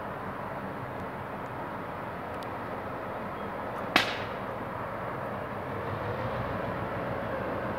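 GM G22W diesel-electric locomotive approaching with a passenger train, its engine rumble and rail noise growing slowly louder. A single sharp crack stands out about four seconds in.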